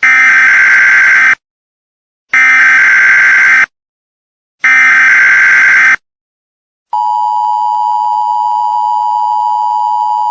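Emergency Alert System tones: three identical bursts of screechy SAME header data, each about a second and a half long with a second's gap between them, then from about 7 s in the steady two-tone EAS attention signal.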